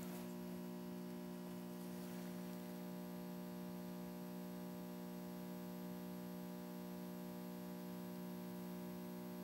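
Steady electrical hum with a buzzy edge from an energized ADB CCT thyristor constant current regulator running on its B2 step.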